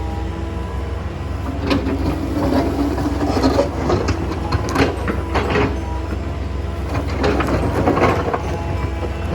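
Excavator running steadily while rocks clatter and knock against its steel bucket and each other, many irregular impacts through the middle of the stretch, as stony soil is worked to separate stones from dirt.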